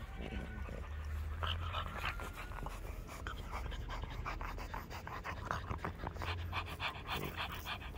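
Shar-Pei puppy panting, with quick, even breaths in and out.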